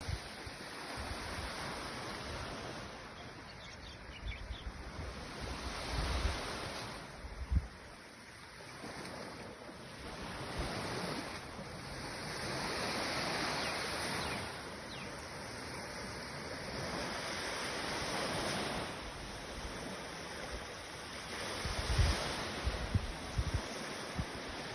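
Sea waves washing in, the surf swelling and fading every few seconds. Wind buffets the microphone in low rumbles, most around six to seven seconds in and again near the end.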